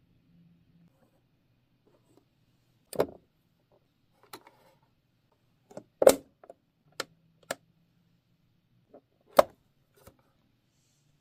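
Small sharp clicks and taps of hard plastic miniature toy-kitchen pieces being handled, including the tiny toy oven door being opened. About nine separate clicks, three of them much louder than the rest.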